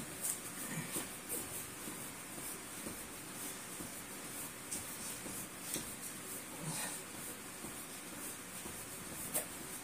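Faint rustling and soft scuffs of a body and clothing moving on a mat during ab exercises, with a few light clicks.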